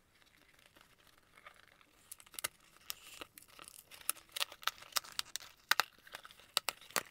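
Packing tape being picked at and torn off a cardboard shipping box, with the box handled: scratchy crackling and irregular sharp snaps, starting about two seconds in.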